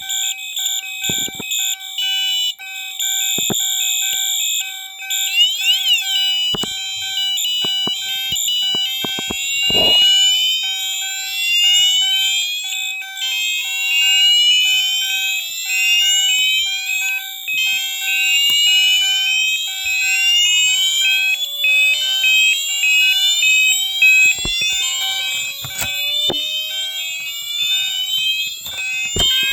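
Several fire alarm sounders driven by a Moose Z900 alarm panel's bell circuit sound together, loud and layered. A steady, pulsing tone runs under high tones that glide about five seconds in. From about twelve seconds in, repeated rising electronic sweeps join, with occasional clicks.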